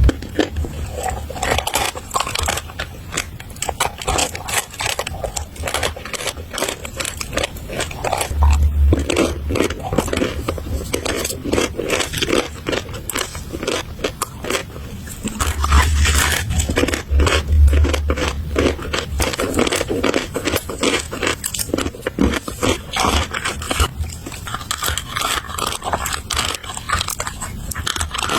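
Close-up chewing and crunching of chalk: a dense run of small crackling bites and grinding, with a few dull low thumps along the way.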